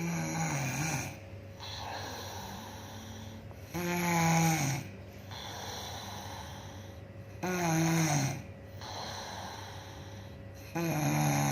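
A woman snoring in her sleep: four loud, droning snores, each lasting about a second and sliding down in pitch, come about three and a half seconds apart, with quieter breathing between them.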